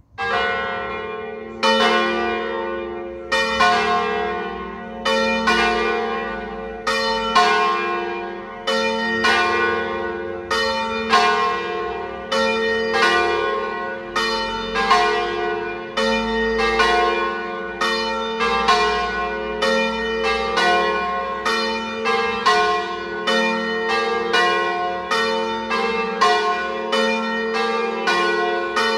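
Church bells cast by Cavadini of Verona in 1926, with a third bell by De Poli from 2022, swinging together in full peal in the Treviso style. They start abruptly, then strike one after another, about once a second or faster, each strike ringing on into the next.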